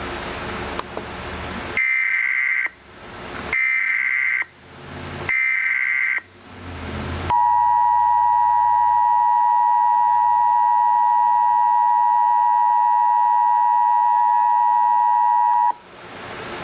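Emergency Alert System tones over radio hiss: three short bursts of SAME header data screech about a second apart, then the steady two-tone EAS attention signal that holds for about eight seconds and cuts off sharply.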